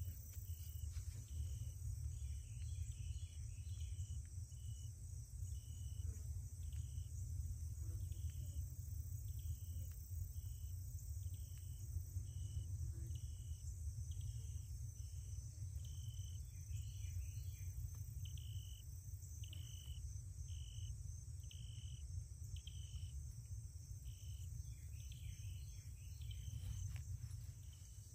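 Insects chirping in the grass: short, high chirps repeating a little more than once a second over a steady high-pitched buzz, with a low steady rumble underneath.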